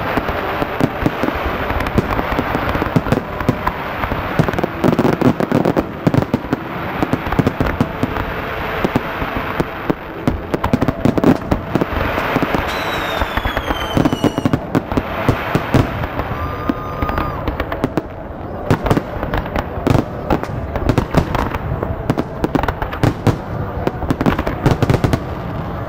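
A big fireworks barrage: shells burst one after another in rapid, overlapping bangs and crackles with no let-up. A whistle glides down in pitch about 13 seconds in.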